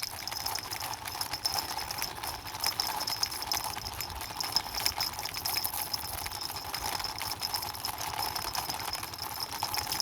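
Large plastic toy flying horse pushed along by hand, giving a steady, fast clicking clatter.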